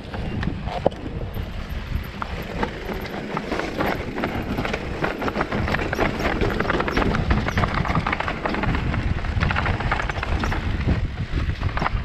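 Electric mountain bike descending a rocky dirt trail, heard from the handlebar: a dense, continuous clatter of knocks and rattles as the tyres and frame hit stones, over a rumbling tyre noise.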